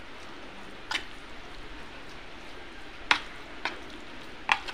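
Spoon stirring a thick, wet mix of soaked poha, semolina and curd in a plastic bowl, with a few sharp clicks as the spoon knocks against the bowl.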